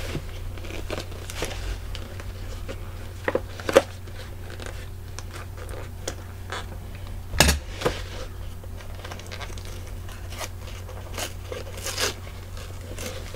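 A mail package of comic books being handled and unpacked: scattered crinkles, rustles and knocks, the sharpest about four and seven and a half seconds in, over a steady low hum.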